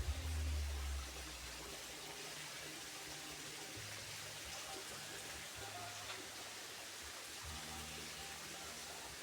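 Steady rush of flowing water from a stream, with a low rumble on the microphone in the first second.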